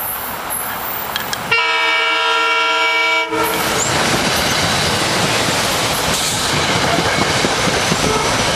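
SEPTA electric multiple-unit commuter train sounds one multi-note horn blast of nearly two seconds, starting about a second and a half in and cutting off sharply. It then rushes past close by, with a steady rumble and the rapid clicking of its wheels on the rails.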